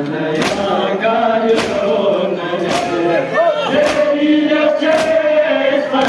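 A crowd of men chanting a Balti noha in unison, a mourning lament sung together, with rhythmic chest-beating matam. The chest beats fall as five sharp slaps about a second apart.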